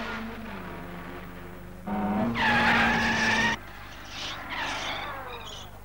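Cartoon sound effect of an old open roadster: the engine runs steadily, then the tyres screech for about a second and a half as the car brakes to a stop, and the engine goes on running quietly.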